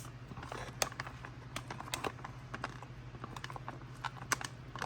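Spoon stirring rehydrated food in a plastic MRE pouch, giving an irregular run of small clicks, taps and crinkles, several a second.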